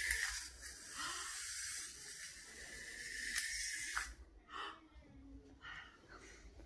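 Small clockwork wind-up toy bugs whirring as their springs unwind, a steady buzzing whirr that stops abruptly about four seconds in as the toys run down.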